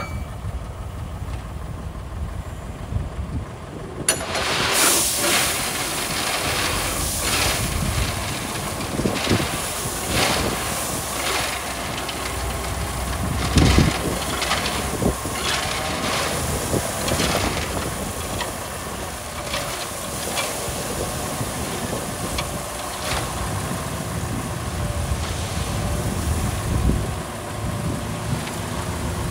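Diesel engines of heavy road-building machinery running. About four seconds in, a loud, steady rushing hiss sets in, with irregular crunches of gravel being moved.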